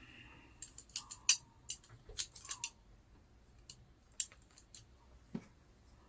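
A string of sharp, irregular clicks and light clinks from a hand tool and small plastic model-kit parts being handled, ending in a duller knock a little after five seconds.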